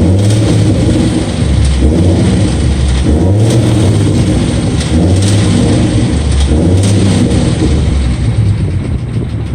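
A 2012 Ford Mustang's 3.7-litre V6 engine running loud and close, its revs rising and falling every second or so. The owner is chasing an unexplained ticking noise from this engine.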